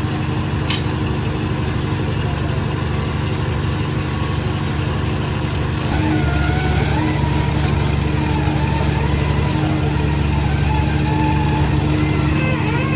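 Diesel engines of road-paving machines, an asphalt paver and rollers, running steadily with a continuous drone. The drone gets louder about six seconds in, and a wavering higher sound joins it.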